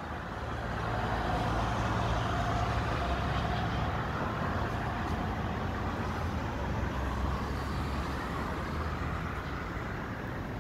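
Road traffic: a motor vehicle's engine and tyres running past, swelling about a second in and slowly fading, over a steady low hum.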